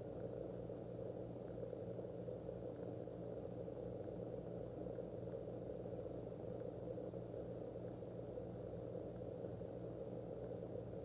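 Steady background hum and hiss with no distinct events: room tone with a low electrical hum.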